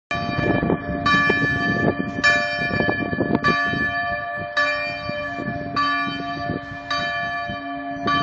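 Church bell ringing, struck about once a second with each stroke ringing on into the next.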